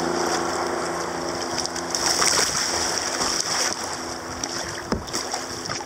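Rushing creek water over a shallow riffle as a sea kayak runs through it, with irregular splashes of water against the hull and paddle, louder about two seconds in.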